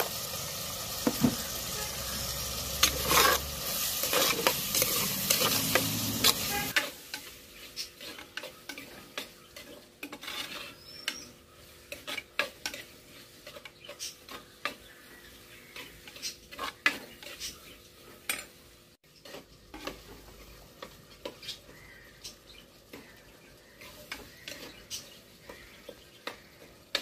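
Onions, tomatoes and spices sizzling in oil in a clay pot while a spoon stirs them, scraping and knocking against the pot. The sizzling is loud at first and drops to a quieter hiss about seven seconds in, leaving the spoon's frequent clicks and scrapes most prominent.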